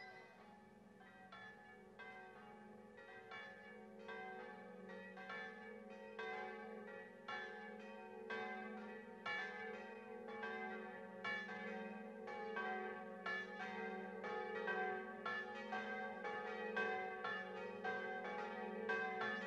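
Church bells pealing, many strokes following one another over a lingering hum, growing louder throughout.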